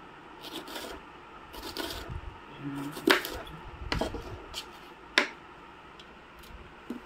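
Knife scraping and chopping fish on a wooden block, with three sharp knocks about a second apart.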